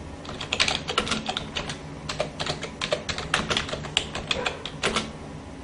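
Typing sound effect: a rapid, uneven run of key clicks, several a second, over a low steady hum.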